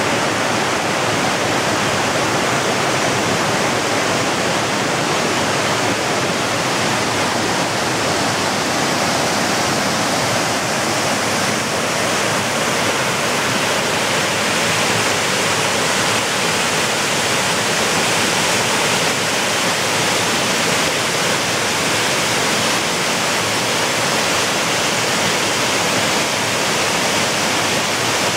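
Mountain torrent pouring over rocks and a small waterfall: a steady, unbroken rush of water.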